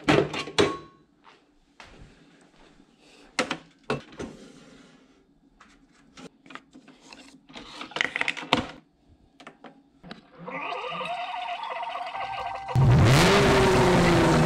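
A stainless steel tumbler and its lid being handled, with a series of clinks and knocks as it is set into a Keurig coffee maker. About ten seconds in a steady hum with a short rising tone starts, the brewer starting up; near the end loud electronic music with a falling bass sweep cuts in.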